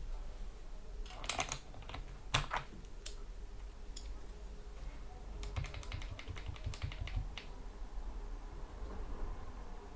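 Typing on a GK61 keyboard with lubed Gateron Yellow optical switches, PBT keycaps and O-rings on the keys. A few scattered keystrokes come first, then a quick run of keystrokes around the middle, and only the odd key after that.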